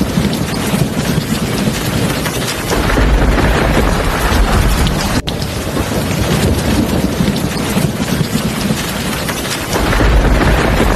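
Heavy rain pouring steadily, with low rolls of thunder rumbling under it, one about three seconds in and another near the end.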